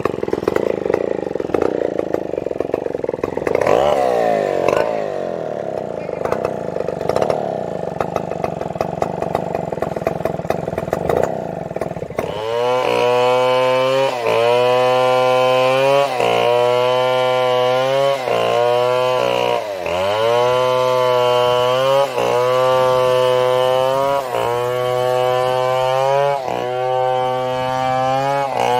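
Chainsaw engine running while cutting a fallen coconut trunk for cocolumber. About twelve seconds in, the sound turns abruptly from a rough, noisy run into a clearer, steady engine note whose pitch dips and comes back every second or two.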